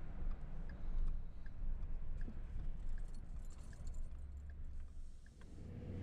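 A car's turn-signal indicator ticking inside the cabin, about one tick every three-quarters of a second, over the low rumble of the engine and road. The ticking stops near the end.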